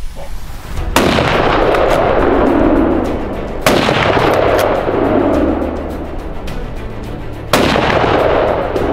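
Three hunting rifle shots: about a second in, near four seconds and near the end. Each crack is followed by a long echo that fades over two to three seconds.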